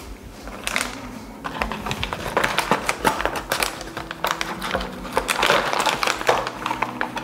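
Plastic parts bags crinkling and rustling as they are rummaged through, in dense crackly handling noise that starts under a second in and gets busier from about a second and a half. Quiet background music with a steady beat runs underneath.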